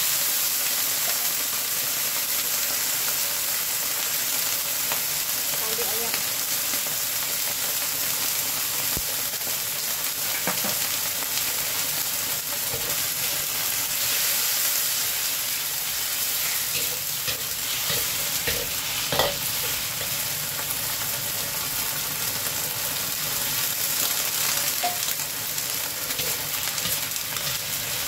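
Sweet-and-sour sauce of tomato ketchup, sugar and a little water sizzling and bubbling with onion and peppers in a hot wok, with a metal spatula scraping and stirring now and then. One sharper clack of the spatula on the wok about 19 seconds in.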